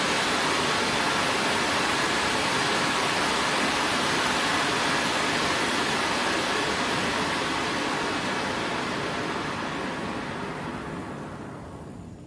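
A firework fountain (a ground gerb throwing a tall three-layer spray of sparks) burning with a steady loud hiss. The hiss thins and fades out over the last few seconds as the fountain burns out.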